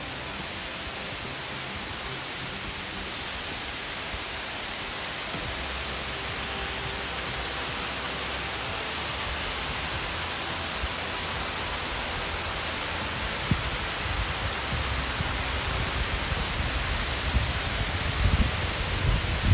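Steady rushing roar of Amicalola Falls, the waterfall's water pouring down its cascade. From about the middle on, irregular low bumps and rumbles come in over it.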